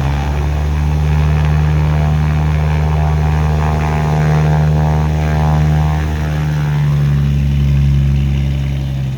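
A Cessna 402 twin piston-engine propeller plane running close by, a steady low engine drone with propeller buzz; the higher tones ease off slightly near the end.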